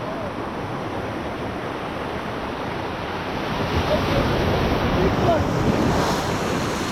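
Ocean waves surging and washing over a rock ledge, with wind buffeting the microphone; the surf swells louder about four seconds in.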